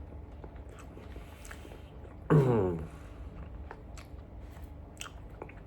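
A person chewing a mouthful of beef chow fun noodles, with scattered small wet clicks. About two and a half seconds in comes one short wordless vocal sound of enjoyment that falls in pitch, the loudest sound here.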